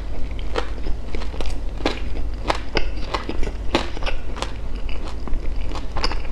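Close-miked chewing of crispy fried Vietnamese pastry: irregular crisp crunches and wet mouth clicks, a few a second.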